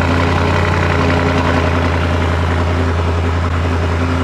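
Audi RS7's twin-turbo V8 idling steadily just after starting, through an exhaust with the silencers replaced by straight pipes.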